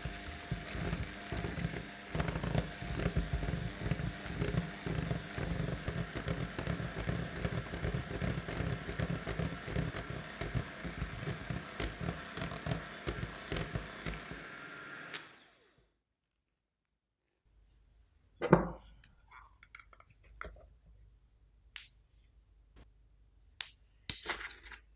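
Bosch electric hand mixer running, its beaters whisking butter and egg in a glass bowl with a steady motor hum and a fast rattling pulse; it cuts off suddenly about fifteen seconds in. After a short silence comes one sharp knock, then light clicks and taps of a measuring spoon at the bowl.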